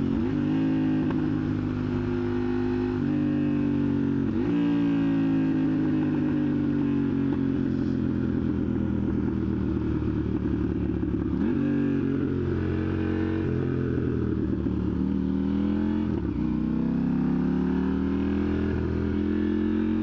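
2021 KTM Duke 890R parallel-twin engine running through a catless Austin Racing exhaust, pulling through the gears. Its pitch rises and falls with several abrupt changes, a few seconds apart, at shifts and throttle changes.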